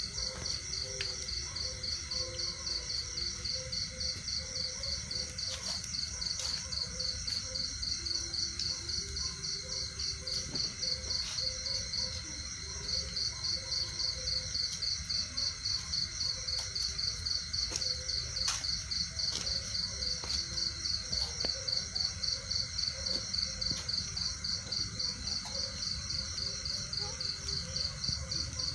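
Insects chirping steadily in a high, fast-pulsing trill that breaks off briefly about twelve seconds in.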